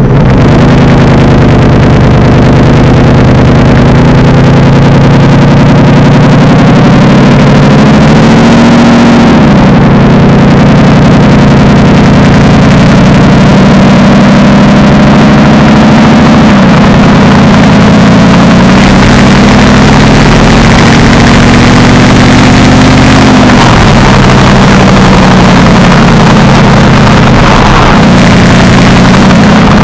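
Mercedes-Benz SLR McLaren's supercharged V8 running through a Devil Sports aftermarket exhaust, loud throughout. The engine note climbs slowly and then drops back suddenly, about three times over the stretch.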